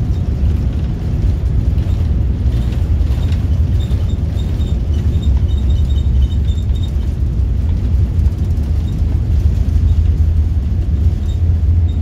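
Steady low rumble inside the cabin of an Air France Boeing 787 Dreamliner as the airliner moves on the ground, engine and airframe noise heard through the cabin.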